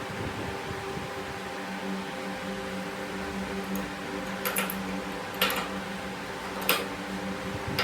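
A motor running with a steady hum, with three short sharp clicks over the second half.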